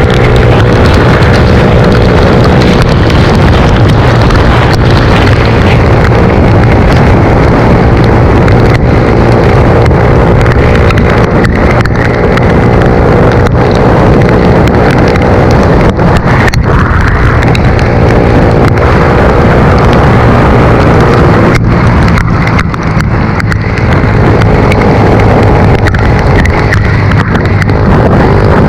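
Suzuki GSX-R125's single-cylinder engine running at a steady riding pace, with wind rushing hard over the microphone. The engine note eases off briefly about two-thirds of the way through, then picks up again.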